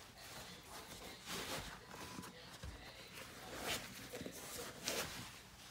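Faint rustling and scuffing of sneakers being pulled on by hand, with a few short swishes of shoe and fabric.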